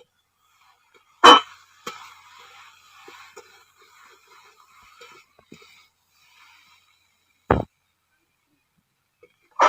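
A sharp metallic clank of a utensil on a cooking pan about a second in, followed by a few seconds of fading frying sizzle, then a dull thump later on.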